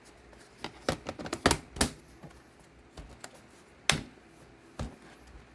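Irregular sharp plastic clicks and knocks as a Lenovo ThinkPad P52 laptop is handled and its removable battery is pushed into place, the loudest clicks about one and a half, two and four seconds in.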